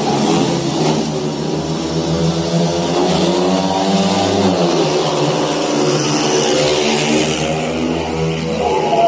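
Four speedway motorcycles' single-cylinder engines revving at the start gate, then accelerating away together partway through as the heat starts.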